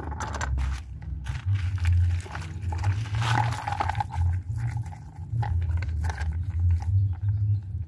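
Hands scrubbing the black plastic air-filter housing of a Honda Dream 110 motorcycle with a soapy pad over a bowl of soapy water: wet rubbing and scraping with scattered clicks, busiest a little after three seconds in. A low, uneven rumble runs underneath and is the loudest sound.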